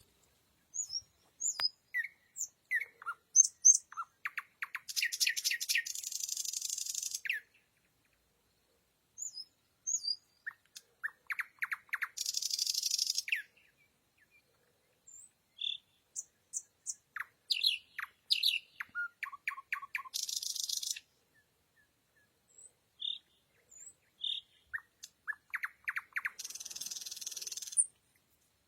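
Nightingale singing: phrases of short whistled notes and rapid clicking trills, four of them ending in a harsh buzzing rattle, with short pauses between phrases.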